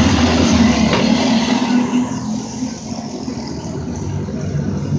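Racing go-kart engines running hard as a pack of karts passes, loudest for the first two seconds and then fading as they pull away down the straight.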